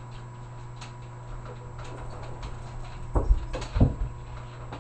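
Plastic zip-top bag of loose pipe tobacco being handled and opened: faint rustling and ticks, with two heavier thumps about three and four seconds in.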